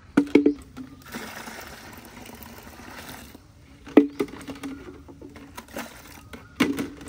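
Metal clanks, each with a short ringing tone, as metal cookware is knocked or set down: a double clank at the start, one about four seconds in and one near the end. Between the first two there is about two seconds of rushing hiss.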